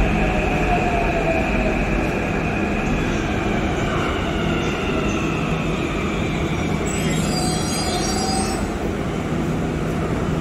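Hyderabad Metro electric train running, its motor whine falling slowly in pitch as it slows, over steady wheel and rail noise. A brief high squeal comes about seven seconds in.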